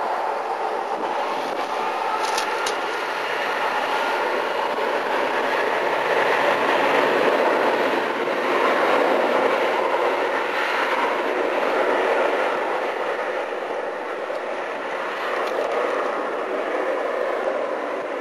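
Twin CFM56-7B turbofan engines of a Boeing 737-800 running with a steady jet rush and a whine. The sound is loudest in the middle and eases as the airliner moves along the runway and turns away.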